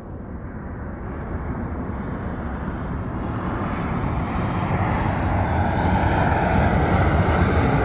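Southwest Airlines Boeing 737 jet airliner approaching overhead, its engine noise growing steadily louder.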